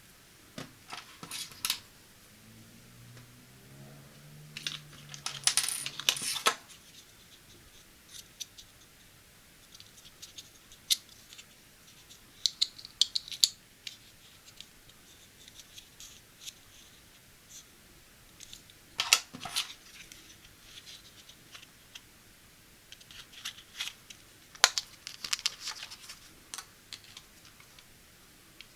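A kids' selfie camera and its packaging being handled during unboxing: scattered clicks, taps and crinkly rustles of plastic and cardboard. A brief low hum sounds a few seconds in.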